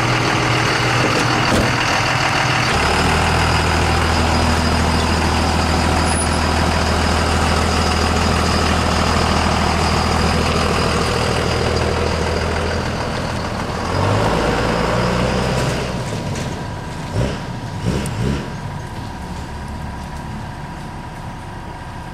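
A warmed-up 5.9 Cummins 24-valve inline-six turbo diesel in a second-generation Dodge Ram runs steadily, its note deepening about three seconds in, then the truck pulls away and the engine fades with distance. A few sharp knocks sound about two-thirds of the way through.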